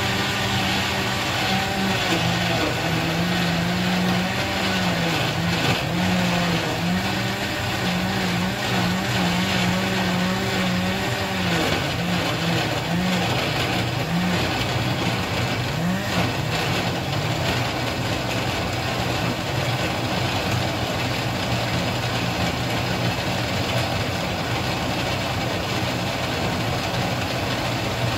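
Electric blender running, grinding onion, garlic, bird's-eye chillies, dried shrimp and grated coconut with a little water into a spice paste. The motor's pitch wavers up and down through the first half as the load shifts, then holds steadier.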